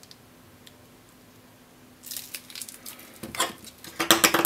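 Small plastic ER11 collet cases rattling and clattering as they are picked up and handled on a workbench, starting about halfway through and loudest near the end.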